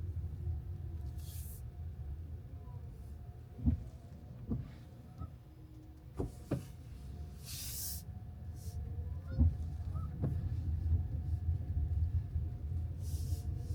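A car's road rumble heard from inside the cabin while driving, with several sharp knocks and a few brief hissing swishes.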